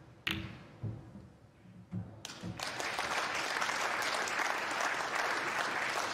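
Snooker balls clicking against each other a few times, then audience applause starting about two seconds in and carrying on steadily.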